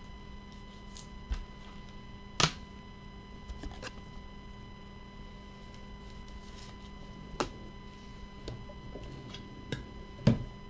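Scattered clicks and taps of trading cards and hard plastic card holders being handled, about five in all, the loudest a little over two seconds in and just before the end, over a faint steady electrical hum.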